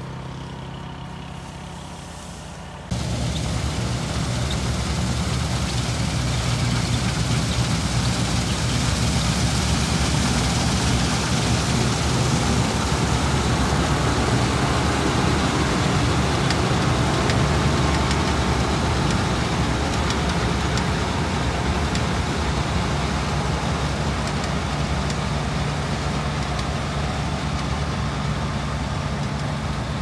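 New Holland combine harvester running close by, loud and steady, its engine and threshing machinery working as it cuts and threshes wheat. It comes in suddenly about three seconds in, after a quieter low hum.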